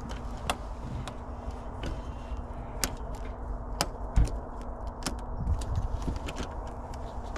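Scattered sharp metallic clicks of a locksmith's tools working a car door lock, irregularly spaced over a steady low hum.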